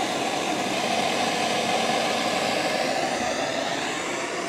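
Propane torch flame burning with a steady, even hiss while it preheats the oil reservoir of a home-built vegetable-oil vapor carburetor.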